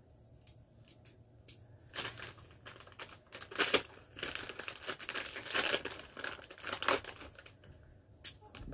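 Plastic wrapping crinkling and tearing as a small package is handled and pulled open by hand. It starts about two seconds in and goes on in irregular crackling spurts until near the end.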